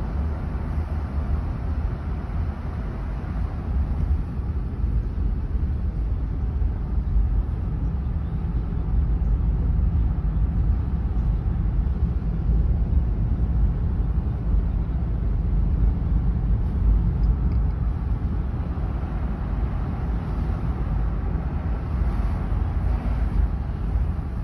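Car driving at low speed, heard from inside the cabin: a steady low rumble of tyres and engine.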